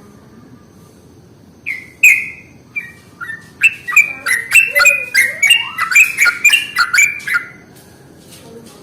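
Yellow-vented bulbul (trucukan) calling. A few separate chirps come about two seconds in, then about four seconds of rapid, loud bubbling notes that end about a second before the close.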